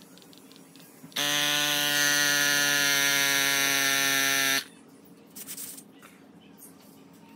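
A RockBros A8 cordless mini electric air pump inflating a scooter tyre through a hose screwed onto the valve. Its motor buzzes steadily from about a second in, then cuts off abruptly some three and a half seconds later, followed by a few faint clicks.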